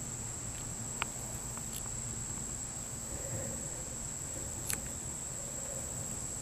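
Crickets trilling steadily in one high, unbroken tone, with a faint low buzz about halfway through and two small ticks.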